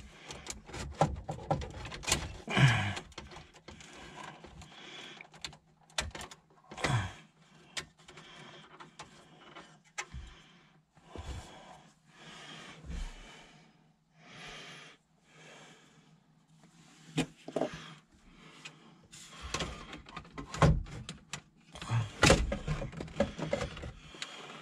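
Plastic dash trim of a 1992 Toyota Corolla being worked loose and handled by hand, with scattered clicks, knocks and rubbing.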